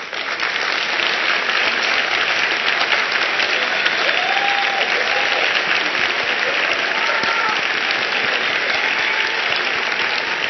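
Large audience applauding loudly, breaking out at once and holding steady, with a few voices whooping and calling out over the clapping.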